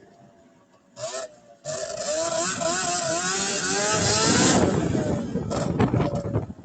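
Snowmobile-engined go-kart revving hard, starting about two seconds in, its engine pitch rising and falling under the throttle, then falling away near the end.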